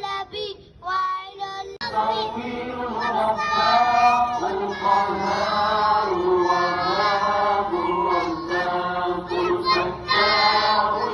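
A group of children singing together in chorus: short separated phrases at first, then from about two seconds in a continuous, fuller sung passage.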